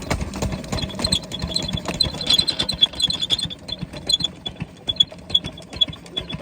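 Diesel water-pump engine running steadily, with a low hum under a fast, even mechanical clatter of clicks.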